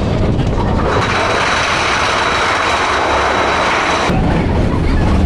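Mine-train roller coaster running on its track, with a low rumble and wind buffeting the microphone. A steady hiss comes in about a second in and cuts off suddenly about four seconds in.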